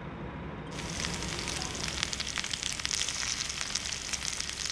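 Chunks of raw meat sizzling and crackling in a wide pan over a wood fire, the sizzle starting abruptly about a second in.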